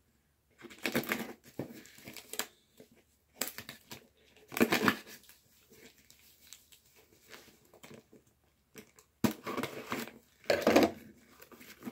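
Gift-wrapping paper being torn and crumpled off a figure box in a series of short rustling, ripping bursts, the loudest about five seconds in and again near the end.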